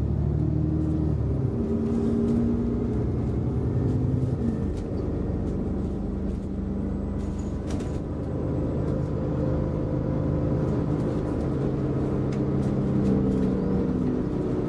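Alexander Dennis Enviro400 MMC double-decker bus heard from on board while driving: steady engine and running noise, with the engine note shifting in pitch a few times in the first seconds. Occasional faint clicks sound over it.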